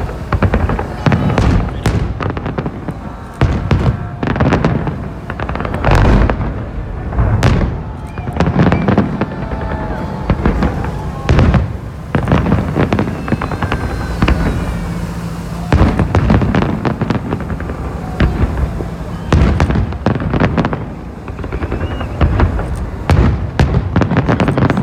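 Fireworks salute going off: a dense, irregular series of loud bangs and booms, several a second, with crackling in between.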